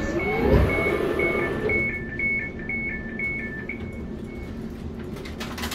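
Door warning beeps on a London Overground Class 710 electric train: a rapid beeping, about four beeps a second, alternating between a higher and a slightly lower tone, that fades out about four and a half seconds in. A rising and falling whine from the train sounds underneath during the first two seconds, and there is a brief noise near the end.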